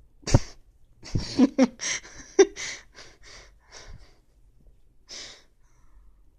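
A puppy huffing and snorting in a string of short, sharp breaths during rough play, a few of them with a low grunt.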